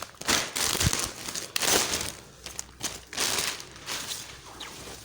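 Packaging of a green-screen cloth crinkling and rustling in irregular bursts as it is opened by hand.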